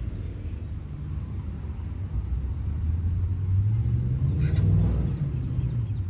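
Low rumble of road traffic, swelling about three and a half to five seconds in as a vehicle passes, then easing off.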